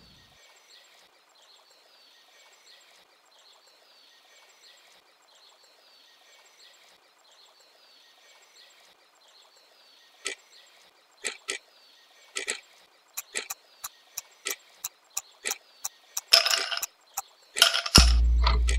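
Countdown-timer sound effect: faint background ambience, then sharp ticks that begin sparsely about halfway and speed up to about three a second, followed by louder noisy bursts and a loud, deep sound at the very end as the countdown runs out.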